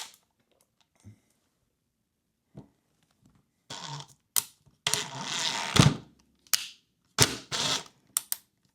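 Hand-handling of small metal refrigerator door hardware: a few seconds of near quiet, then a run of sharp clicks and clatters with about a second of scraping in the middle, as the hinge stud and parts are fitted.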